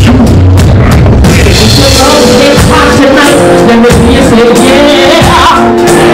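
Live R&B band playing loud, with a woman singing into a microphone; the heavy drums and bass thin out about a second in and the singing carries on over held chords.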